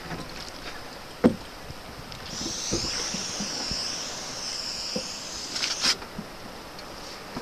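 Water slapping against the hull of a small wooden boat, with a sharp knock on the boat about a second in and a few lighter knocks. For a few seconds in the middle a high, wavering whistle-like sound runs over it, ending with a second sharp knock.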